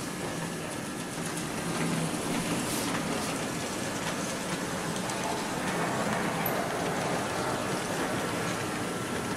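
H0-scale model electric locomotive (ACME SŽ 342 converted to the Märklin system) running along the track, its five-pole flywheel motor whirring and its wheels rattling over the rails. The sound grows a little louder about two seconds in as the locomotive comes near.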